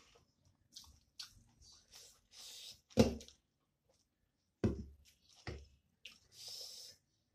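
Eating sounds: chewing and mouth noises of someone eating a rice meal with her fingers, with a few sharp knocks, the loudest about three seconds in.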